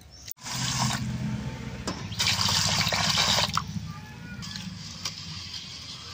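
Water rushing into a steel bowl of soaked red lentils and rice, loudest between about two and three and a half seconds in. Then comes quieter splashing as a hand stirs the grains in the water.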